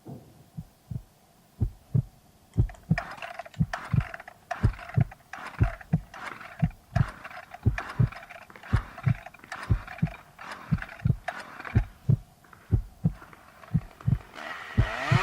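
A steady run of low thumps, about three a second, with a lighter scuffing layer over them from about two and a half seconds in. A rising noise builds near the end.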